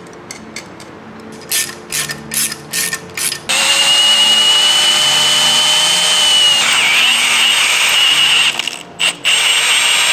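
A cordless drill drilling a hole into the engine through a bolted-on template: a run of about six sharp ratcheting clicks, then the drill starts about three and a half seconds in and runs with a steady whine, dipping in pitch as the bit bites, cutting out briefly near the end and starting again.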